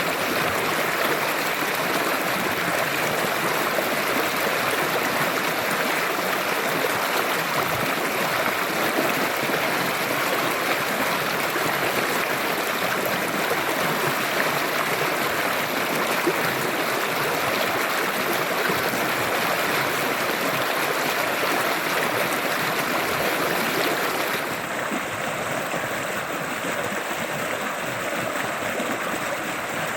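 River water flowing steadily. About 24 seconds in, the sound changes: it becomes a little quieter, with less hiss.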